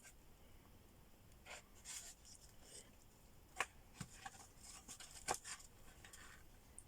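Quiet mukbang eating sounds: scattered sharp clicks and short rustles as food is handled and eaten, the two loudest clicks about three and a half and five seconds in.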